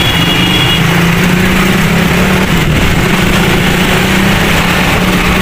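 A vehicle engine running steadily close by, with the hiss and hum of passing street traffic.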